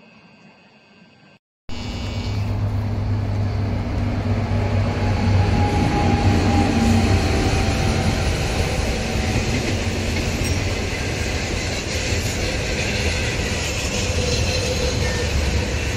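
HXD3C electric locomotive hauling a passenger train past at close range: a loud, steady rumble of wheels on rail with a low hum, cutting in suddenly about a second and a half in.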